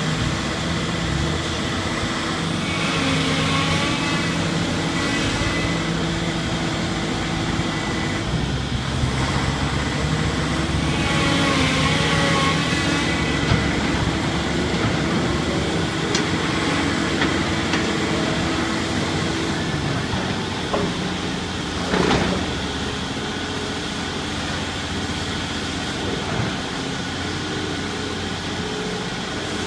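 Komatsu demolition excavator running, its engine note shifting several times, with one sharp bang about three-quarters of the way through. The owner thinks the trouble is in the machine itself rather than in the shear attachment, and the excavator is out of action.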